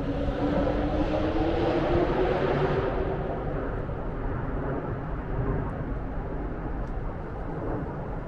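A motor vehicle passing in city traffic. Its engine note rises over the first three seconds, then fades into a steady traffic rumble.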